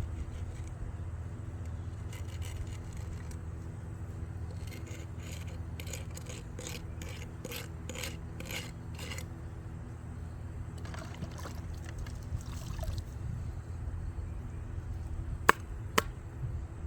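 Hand tool scraping through wet concrete in a run of quick strokes, about two a second, starting a few seconds in, over a steady low hum. Two sharp clicks come near the end.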